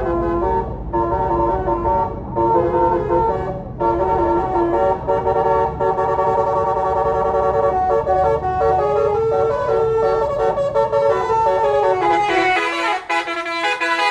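Tour bus's basuri telolet horn, a multi-tone musical horn, playing a tune of short stepping notes over the bus's engine and road rumble. The low rumble drops away near the end while the tune keeps going.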